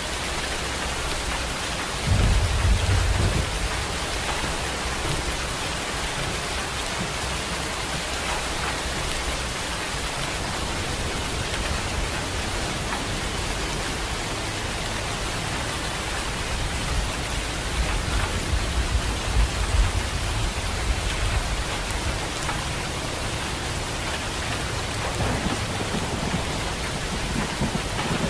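Rain falling steadily with low rolls of thunder: one breaks in suddenly about two seconds in, a longer one swells past the middle, and another rumbles near the end.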